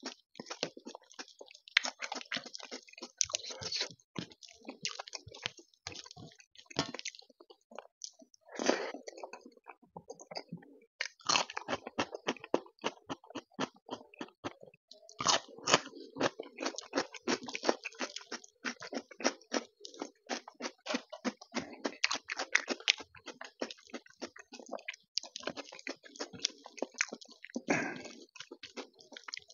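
Close-miked chewing and wet mouth sounds of a person eating rice with taro root curry, with crisp, crunching bites of raw cucumber.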